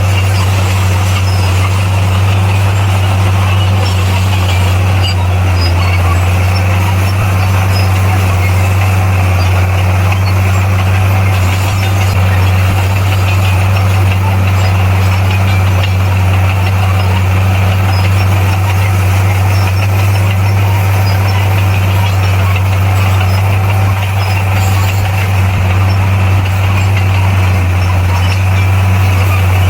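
Bulldozer's diesel engine running at a steady speed, a loud constant low drone without let-up.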